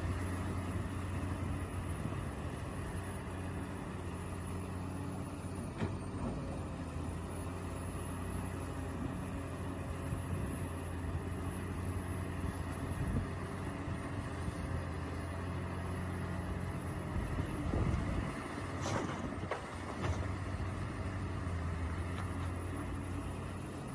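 Radio-controlled excavator and dump truck models at work: a steady mechanical hum with a thin high whine over it, broken by a few short knocks about 6 and 19 seconds in.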